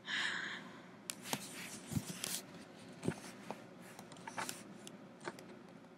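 A short breathy sound at the start, then faint scattered rustles and small clicks of someone shifting about and handling a laptop.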